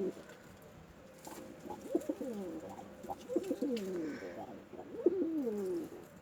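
Domestic pigeons cooing: three falling coos about a second and a half apart, each opening with a few quick stuttered notes.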